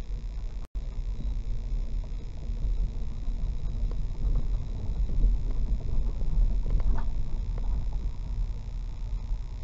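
Low, steady rumble of a car's engine and tyres rolling slowly over a timber-planked bridge deck, heard from inside the car. The audio cuts out for an instant under a second in, and a few light knocks come about seven seconds in.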